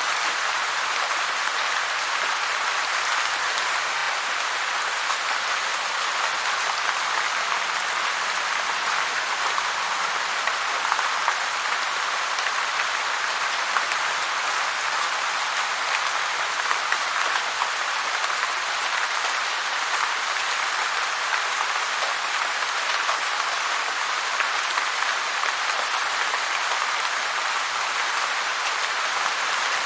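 Heavy rain falling, a steady dense hiss of drops with a few slightly louder spatters here and there.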